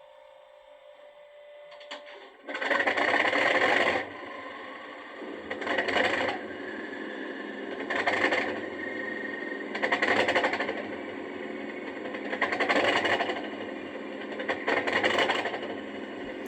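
Sound decoder of an OO gauge Class 37 diesel-electric model playing its cold engine start through the model's onboard speaker. After a faint hum and a few clicks, the engine sound starts up loudly about two and a half seconds in, then runs on with a rise in level roughly every two seconds.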